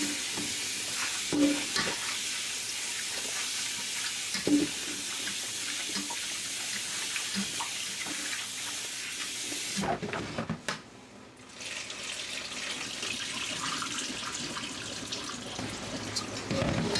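Water running steadily, as from a kitchen tap into a sink, with a few light clinks. It cuts off suddenly about ten seconds in, and a quieter, similar hiss follows.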